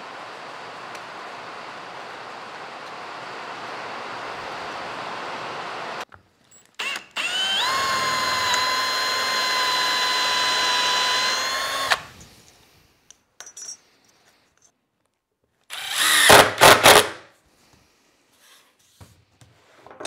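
Cordless drill spinning up with a rising whine, then running at a steady pitch for about five seconds while boring through a thin strip of brass plate. A steady hiss comes before it, and a short, louder burst of power-tool noise about a second long follows near the end.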